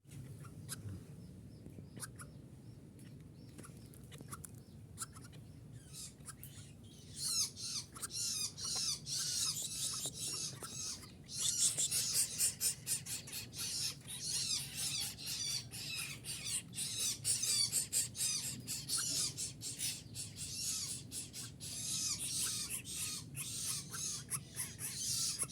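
A greater coucal chick calling with rapid, high-pitched chirps, sparse at first and then denser and louder from about seven seconds in, over a low steady hum.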